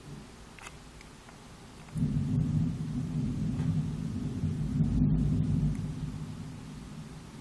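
Thunder: a low rumble that starts abruptly about two seconds in, swells to its loudest a few seconds later, then fades away near the end.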